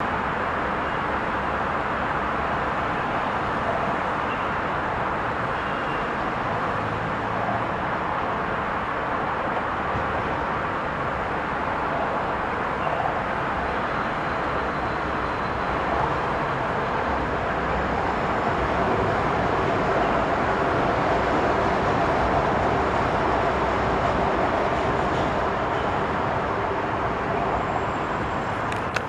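Steady city rumble in which a Shanghai Metro train runs along its track, with a little swell in the second half.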